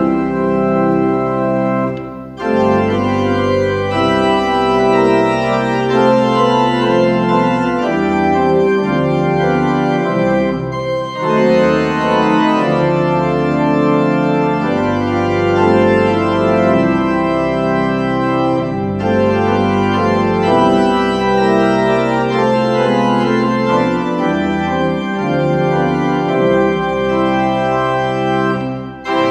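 Church organ played with full sustained chords over a deep pedal bass, the harmony changing about every second, with brief breaks between phrases about 2, 11 and 19 seconds in.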